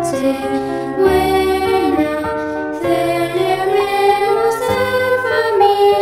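A children's choir singing an original Spanish Christmas carol (villancico), the voices holding long notes that change about once a second.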